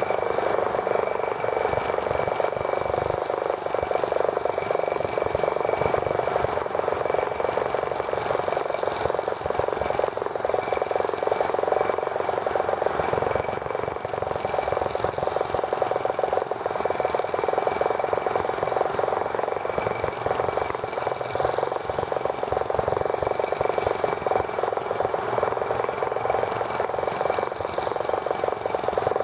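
Small gasoline engine of a T26 model tractor running steadily, a fast, even buzzing rattle with a thin high whine, while wind buffets the microphone.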